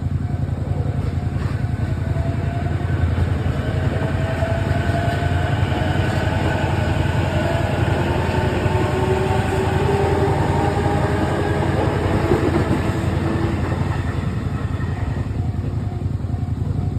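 An electric train passing over a level crossing: a heavy steady rumble with motor whine gliding up and down in pitch. The crossing bell's repeated ringing comes through again near the end as the train noise fades.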